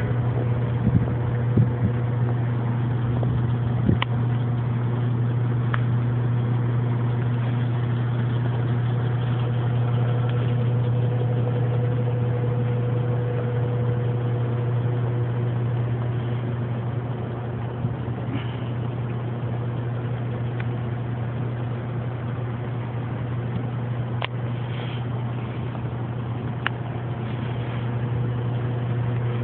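A steady low mechanical hum, like an engine idling, that holds unchanged throughout, with a few faint clicks.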